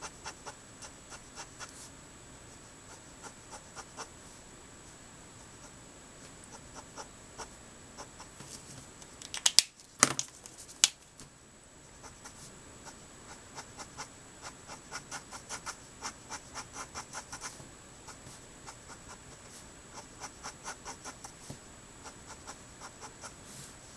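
Letraset Promarker alcohol-marker nib scratching across paper in runs of quick short strokes, about four a second. About ten seconds in there are a few sharp, loud clicks as the marker is swapped for another.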